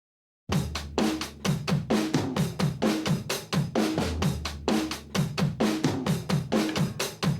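Music starts abruptly about half a second in: a drum-kit groove of kick, snare and hi-hat at a steady beat over a low bass line.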